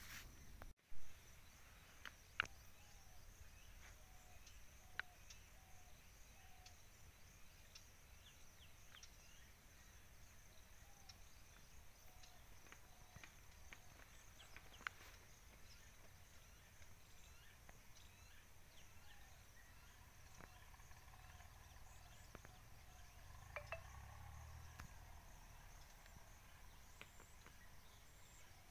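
Faint rural field ambience: a steady high-pitched insect drone with scattered soft bird chirps and small ticks. There is a sharp click about a second in, and a brief louder rustle with low rumble about three-quarters of the way through.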